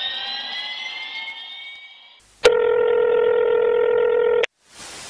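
A rising electronic sweep fades out. Then a steady, telephone-like electronic tone sounds for about two seconds and cuts off, and an even burst of hiss follows: a phone-call sound effect opening the track.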